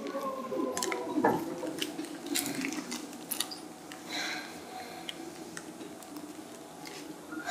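Seibu 2000 series electric train coming to a stop: its falling motor whine dies away with a thud about a second in. The car then stands still with scattered light clicks and ticks and a short hiss near the middle.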